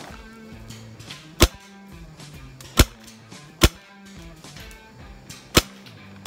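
Paintball marker firing: five sharp pops at uneven intervals, over background music with held low notes.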